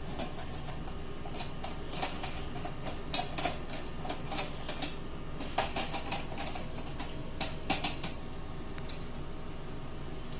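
Irregular clicks and light clatter of a rice cooker being taken apart by hand, its plastic casing and screws knocking as it is opened.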